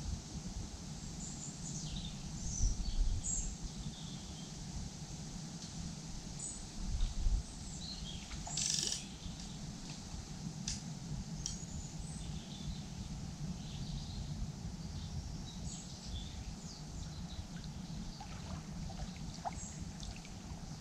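Wild birds chirping and singing over a steady low rumble of outdoor background noise. Two low thumps come a few seconds apart early on, and a short hiss comes near the middle.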